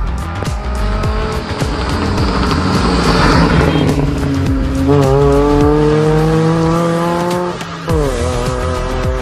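A hatchback with a loud aftermarket exhaust passes close and accelerates away, its engine note climbing in pitch, dropping sharply at a gear change near the end, then climbing again. Background music with a steady beat plays throughout.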